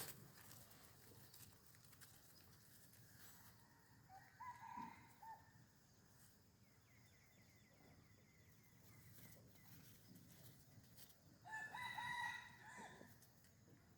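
Faint rooster crowing twice, a short call about four seconds in and a longer, broken one near the end. A faint rapid ticking sits between them.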